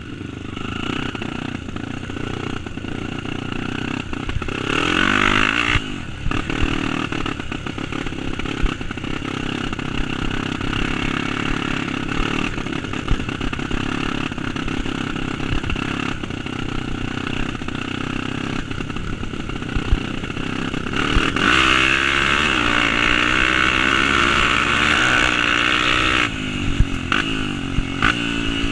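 Single-cylinder Honda trail motorcycle running while riding, the engine note rising and falling with the throttle and pulling harder about 5 seconds in and again for several seconds near the end, with scattered knocks and rattles.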